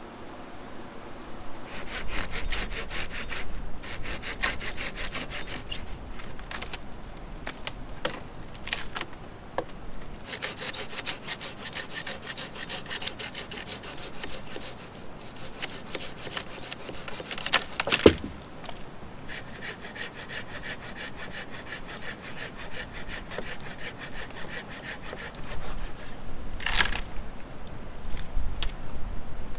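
Hand saw cutting through dead branches with quick back-and-forth strokes, in bouts broken by short pauses. A single sharp crack comes around the middle as a piece of wood breaks.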